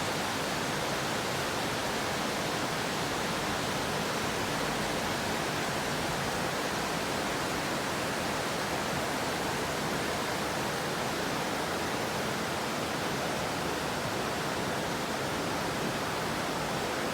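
River water rushing, a steady unbroken noise.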